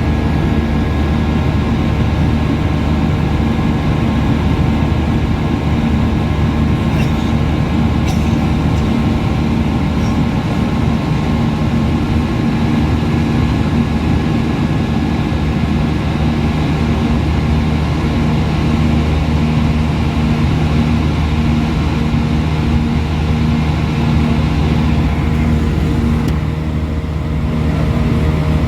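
Steady engine and airflow noise inside an Airbus A320 cabin: a continuous drone with several even hums, one faintly pulsing. It eases slightly for a moment near the end.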